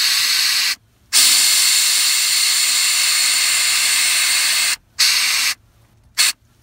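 Compressed air hissing loudly through the paddle-switch valves of an Air Lift dash control as the rear air springs are adjusted from the onboard air tank. There is a long steady hiss with a brief break about a second in, then a few short spurts near the end as the switches are tapped.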